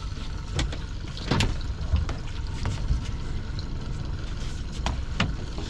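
Small boat on the sea: water slapping against the hull with scattered knocks, over a steady low rumble.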